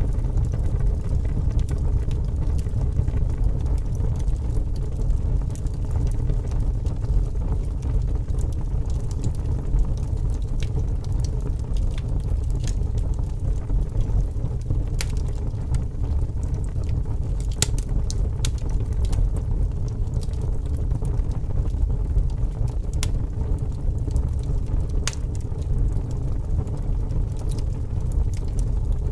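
Wood fire burning in a fireplace: a steady low roar with scattered sharp crackles and pops, a few of them about halfway through and later on.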